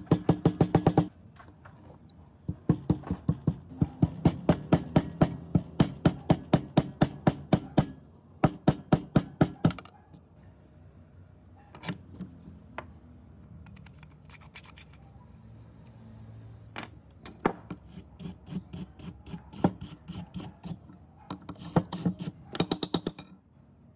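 Rusty steel hedge-shear blade clamped in a bench vise being scrubbed by hand with a wire brush: quick rasping back-and-forth strokes, about five a second, in runs at the start and near the end. In the middle the strokes give way to a few scattered knocks and scrapes as the blade is handled.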